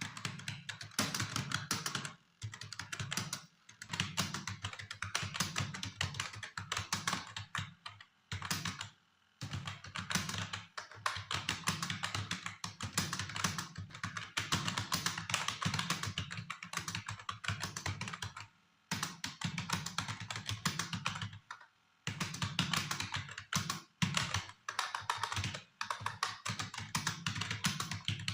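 Typing on a computer keyboard at about 43 words per minute: a continuous patter of key clicks broken by short pauses every few seconds.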